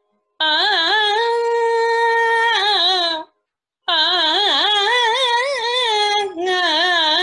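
A woman singing a wordless Carnatic raga phrase in Saramathi: a long held note that bends and wavers at its end, then, after a short breath, two more phrases full of rapid oscillating ornaments (gamakas).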